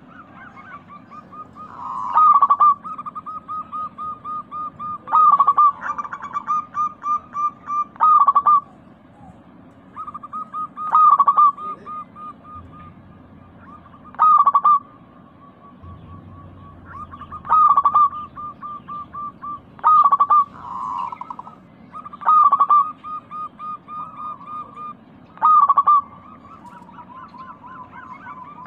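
Zebra doves (local perkutut) cooing in a trilling, rolling song. A loud call comes about every three seconds over an almost unbroken run of softer, rapid coos.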